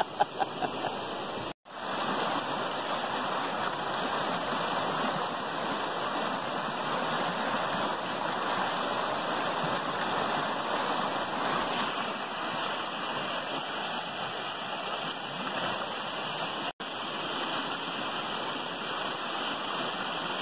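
Flooded creek in spate, its fast, muddy water rushing steadily. The sound cuts out for an instant twice: once a second or two in, and again near the end.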